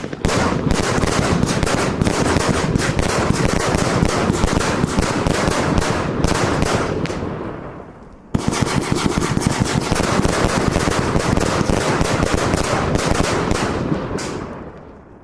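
F2 compound firework cakes firing shots in very rapid succession, a dense rattle of bangs. It dies away about eight seconds in, starts again abruptly, and fades out near the end.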